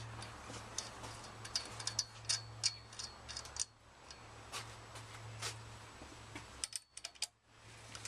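Irregular light metallic clicks and ticks of a 5 mm Allen key working the bolts of a scooter's handlebar clamp, over a steady low hum.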